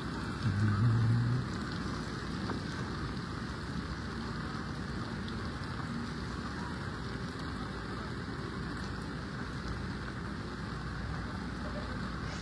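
Steady hiss of rain and water in a flooded street. About half a second in, a brief low hum lasts about a second and is the loudest moment.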